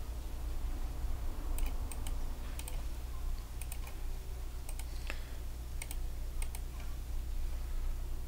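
Computer keyboard being typed on slowly: a dozen or so separate key clicks, often in close pairs, spread out with pauses between them, over a steady low hum.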